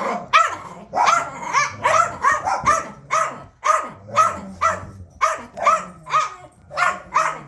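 A puppy barking over and over: short, high-pitched yaps, about two a second, closer together in the first few seconds.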